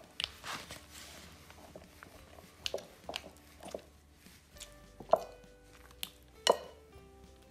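Glue and borax solution being stirred in a bowl: a utensil knocks and clicks irregularly against the bowl among soft wet squishing sounds, over faint background music.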